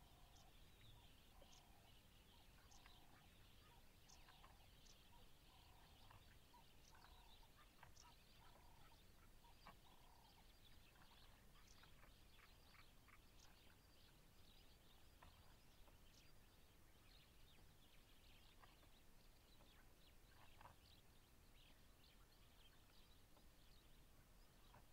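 Near silence: faint evening bush ambience. A soft call repeats every second or so for about the first ten seconds, and short high bird chirps are scattered throughout.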